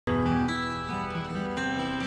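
Instrumental intro music with notes changing about every half second.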